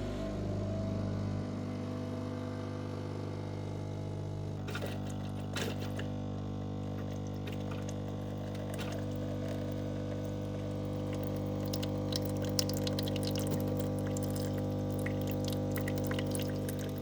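Miele CVA 6401 espresso machine running its start-up rinse cycle: the pump hums steadily while water runs from the spout into a container. The patter of water and drips grows busier in the second half.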